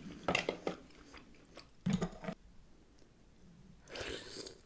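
Close-miked eating of seafood boil: wet biting and chewing with clusters of short smacking clicks, a louder bite about two seconds in, and a breathy rush near the end.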